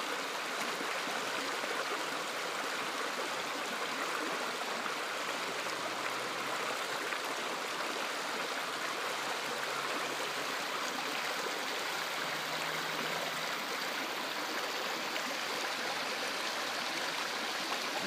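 Shallow river running fast over rocks and stones, swollen by heavy rain: a steady, even rush of water.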